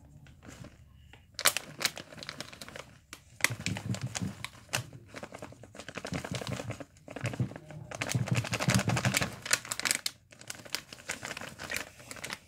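A crinkly packet being crumpled and torn by hand. It comes in bursts of crackling from about a second and a half in, with short pauses about 3, 7 and 10 seconds in.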